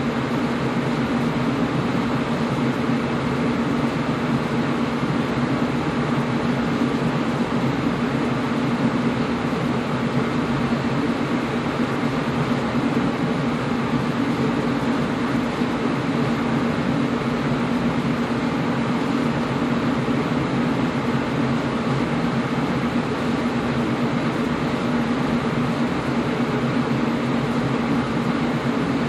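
Air conditioner running steadily: an even rush of fan noise over a low, constant hum, with no change in level.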